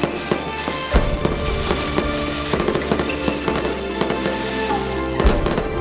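Japanese handheld tube fireworks (tezutsu hanabi) going off, with rapid crackling pops and two heavier bangs, about a second in and near the end. Music plays underneath.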